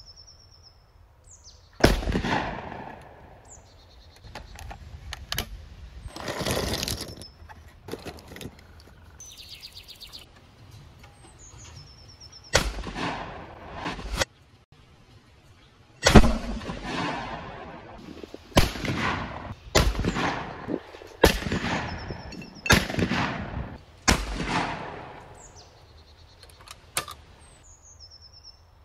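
A 12-gauge over/under shotgun firing target loads, about ten sharp shots one to a few seconds apart, each with a short ringing tail. Birds chirp between the shots.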